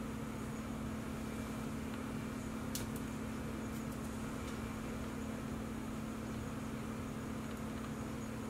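Steady low hum of a running appliance with a constant background hiss. A few faint, light clicks come about three to four seconds in.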